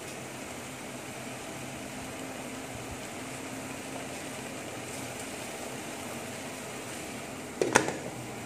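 A steady hiss, then an aluminium pot lid set down on an aluminium steamer pot with one sharp metallic clang and a brief ring near the end.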